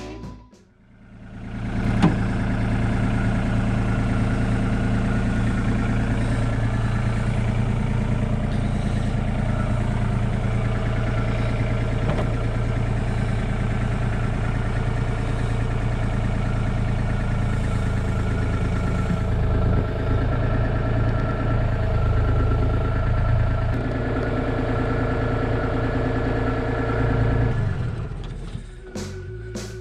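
Hitachi 35U mini excavator's diesel engine running steadily, coming in about two seconds in and dropping away near the end.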